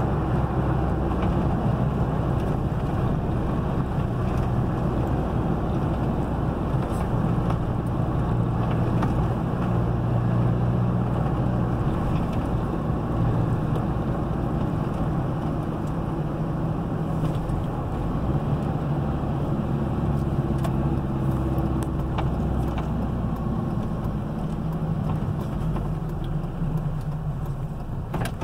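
Car engine and tyre noise heard from inside the cabin while driving on a paved road: a steady low hum, a little quieter near the end.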